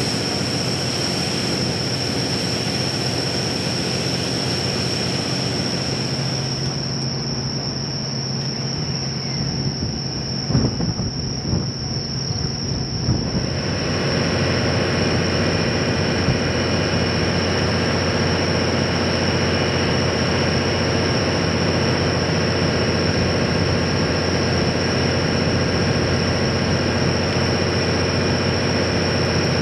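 D51 200, a 2-8-2 steam locomotive, running on the line: a steady heavy rumble with a few sharp knocks about a third of the way in, growing louder and fuller about halfway through. A steady high-pitched tone runs under it throughout.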